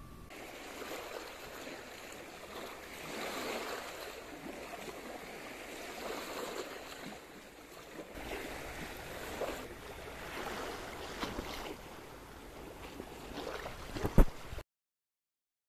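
Small sea waves washing in and drawing back over a stony shore, swelling and fading at uneven intervals. Near the end come a couple of sharp knocks, the loudest sound, and then the sound cuts off suddenly.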